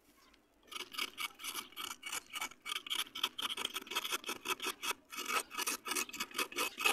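A flat wooden stick scraping the inner edge of a dry, crumbly red clay ring in rapid back-and-forth strokes, a gritty rasping as clay powder breaks away. It starts about a second in and runs on at several strokes a second.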